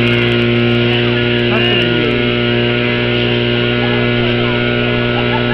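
Portable fire pump engine running steadily at a constant pitch, under load while pumping water out through the hoses to the nozzles.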